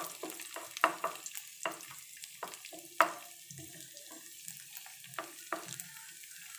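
Cashews and raisins frying in ghee with a faint sizzle, while a wooden spatula stirs them around a nonstick pan in irregular scrapes and taps, the loudest about three seconds in.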